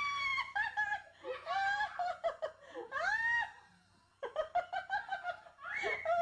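People laughing hard, in choppy bursts with long high-pitched shrieks, pausing briefly about four seconds in before breaking out again.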